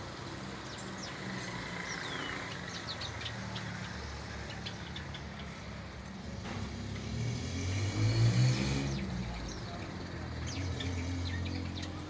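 A flock of Java sparrows chirping with many short, high calls, over a steady low engine hum that swells to its loudest about eight seconds in, then fades.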